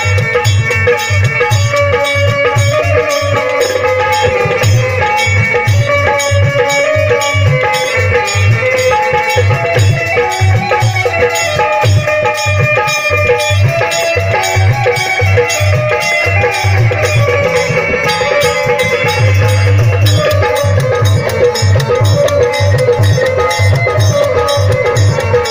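Instrumental music: an electronic keyboard plays a melody over a steady dholak beat, with a rattling hand percussion keeping time.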